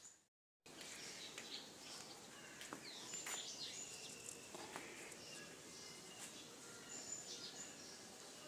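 Faint outdoor ambience with scattered short bird chirps and calls over a low steady hiss, after a brief dropout to silence just after the start.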